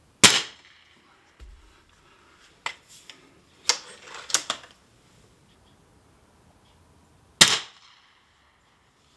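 Two shots from a .177 Gamo Hunter 440AS break-barrel air rifle, sharp cracks about seven seconds apart. Quieter clicks and knocks fall between them.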